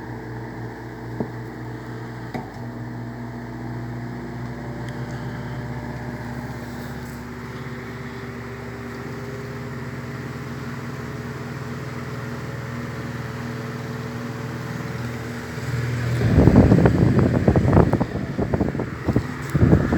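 1970 Eletromar Westinghouse desk fan running, its electric motor giving a steady hum, with two light clicks in the first few seconds. About sixteen seconds in, loud gusty wind buffeting the microphone takes over.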